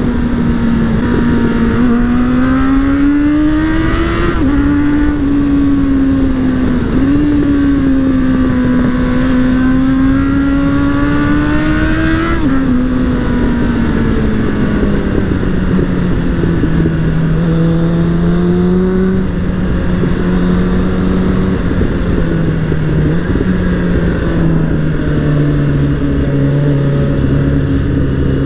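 Suzuki Bandit 600's inline-four engine and exhaust, heard from the rider's seat over wind rush, accelerating: the revs climb and drop sharply at upshifts about 4, 7 and 12 seconds in. The engine then eases off, its revs falling lower in steps through the second half.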